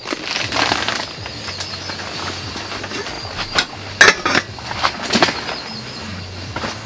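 Scattered light clinks and knocks of a metal cooking pot and lid being handled on a portable gas stove, the sharpest about four seconds in, over a low steady hum.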